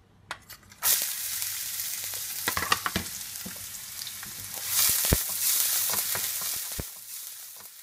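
Eggs frying in an oiled pan. A loud sizzle starts suddenly about a second in, swells again around the middle and dies down near the end, with scattered knocks of a utensil stirring them.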